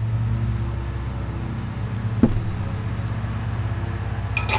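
A steady low engine hum runs throughout. There is one light knock about two seconds in and a short clatter of sharp clicks near the end.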